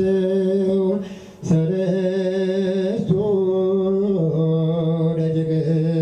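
Sung chant of long held notes, the pitch stepping down about four seconds in, with a short break about a second and a half in.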